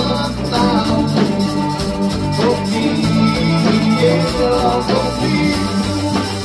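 Live rock band playing, with guitars and drums.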